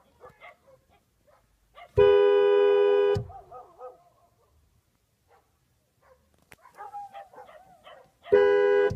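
A car horn blares twice: a blast of about a second, then a shorter one near the end. Between the blasts, dogs bark briefly and whine.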